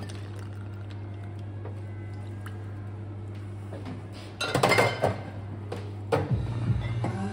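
Glass shot glasses clinking as they are handled and set down on the bar, in a cluster of sharp clinks about four and a half seconds in and one more clink a second later. A steady low hum runs underneath.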